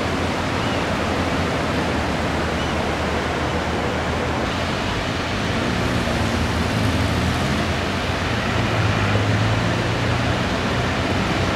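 Steady hiss of rain falling on wet pavement. A low vehicle hum rises under it in the second half.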